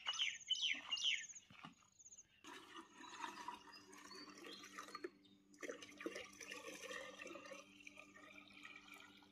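Birds chirping briefly at the start, then water pouring and splashing steadily into a plastic watering can as it fills.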